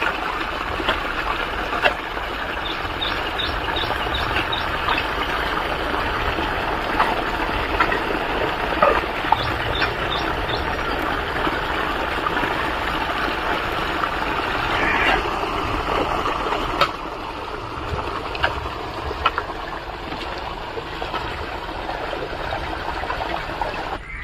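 Steady rush of water draining out of a backyard fish pond and running off across the ground; it turns a little quieter about two-thirds of the way through.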